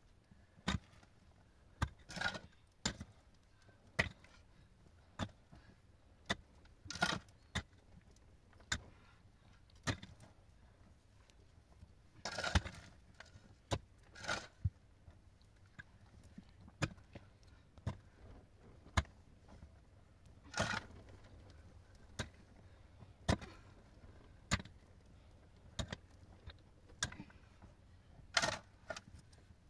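Repeated sharp strikes of a hand tool on a hard surface, about one a second, with several longer scraping or crunching sounds in between.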